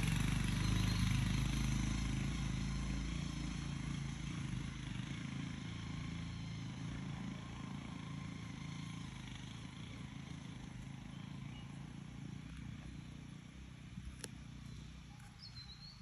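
Motorcycle engine running at low speed on a rough dirt track, fading steadily as the bike moves away. A sharp click about fourteen seconds in and a short chirp near the end.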